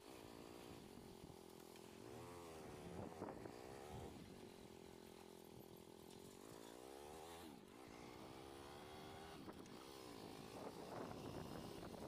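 Motorcycle engine running while being ridden, its pitch climbing and dropping several times as the throttle is opened and eased.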